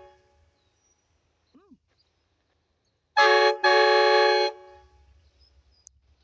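Air-fed train horn sounding two short blasts about three seconds in, a brief one and then one lasting about a second, each a loud chord of several tones that starts and stops sharply as the blowgun on its valve is pressed and released.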